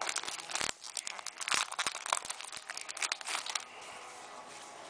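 Wrapping around a stack of trading cards crinkling and tearing as hands unwrap it, a busy run of crackles that dies down about three and a half seconds in.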